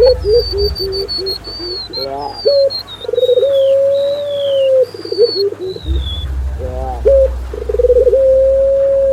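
Doves cooing in a mixed lure recording: runs of short stuttering coos and long, steady held coos, with thin high descending whistles from a small songbird in the first half. A low rumble comes in about six seconds in.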